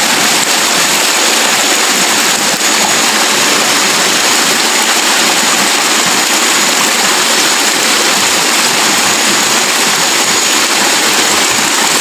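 Loud, steady rush of a small waterfall: a spout of water pouring down onto rocks.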